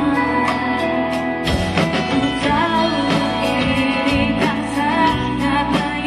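Live pop band playing with a steady drum beat and electric guitars, and a woman singing.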